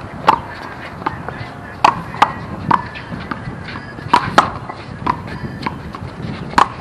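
One-wall handball rally: sharp slaps of the rubber ball struck by bare hands and smacking off the concrete wall and court, coming irregularly about every half second to second.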